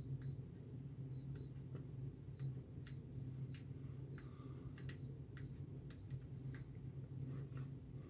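Short ticks and beeps from a programmable DC electronic load's buttons and adjustment knob as it is set to a 15-watt load. They come irregularly, about two or three a second, over a steady low hum.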